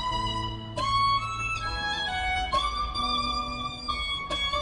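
Violin played by a street performer: a slow melody of long held notes, moving to a new note about every second.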